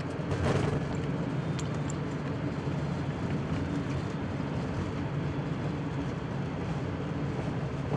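Airbus A350-900's Rolls-Royce Trent XWB engines in reverse thrust on the landing rollout, heard from the cockpit as a steady rumble mixed with the noise of the airliner rolling down the runway.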